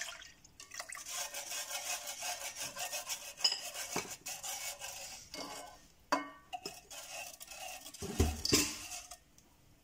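Stainless wire whisk stirring milk in a black pot, a quick run of scraping and clinking strokes of the wires against the pan. A louder knock comes a little after eight seconds, then the stirring stops.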